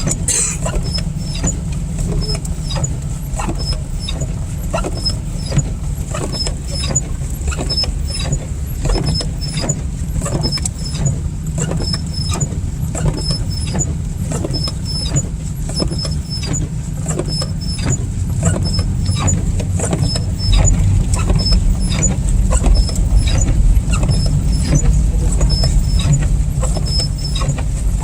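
Car cabin while driving through slush: a steady low road-and-engine rumble, with the windshield wipers on fast, making a short high squeak on each pass about once a second, and slush spattering against the car. About twenty seconds in, the low rumble gets louder.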